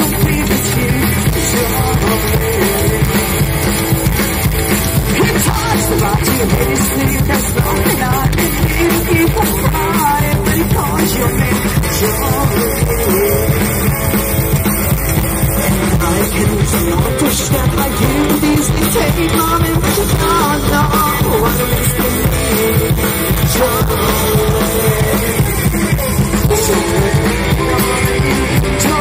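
A live rockabilly band playing loudly: upright double bass, drum kit and electric guitar, with singing at times.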